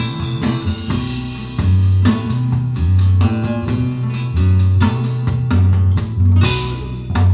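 Recorded music with plucked guitar over a deep bass line, played through a pair of Dali Ikon 5 mk2 loudspeakers and picked up in the room. The bass notes come back about once a second under quick plucked notes and light percussive ticks.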